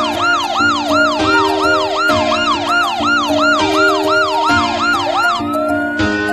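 Electronic siren sounding a fast yelp, about three rising-and-falling whoops a second, switching near the end to a slow wail. A tune of steady held notes plays beneath it.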